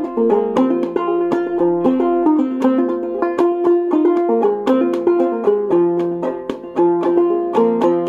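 Banjo played clawhammer style in sawmill tuning (gDGCD), an old-time tune picked in a steady, even rhythm of plucked notes.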